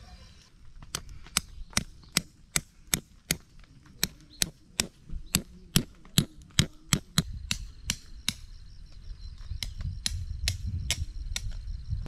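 Hammer driving a metal tent stake into the ground: about twenty sharp strikes at roughly three a second, which stop about seven seconds in and give way to a low rumble.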